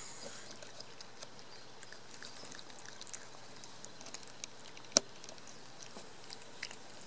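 A cat eating wet pâté cat food up close: small, wet chewing and lip-smacking clicks, with one sharp click about five seconds in.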